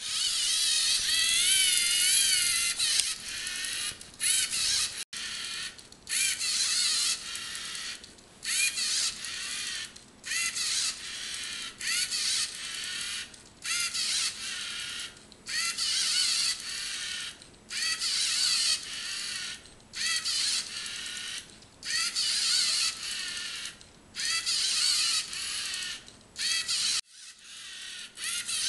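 LEGO Mindstorms NXT robot's servo motors and gears whining in short stop-start bursts, about one every two seconds, the pitch wavering up and down within each burst as it drives and makes small incremental turns away from walls.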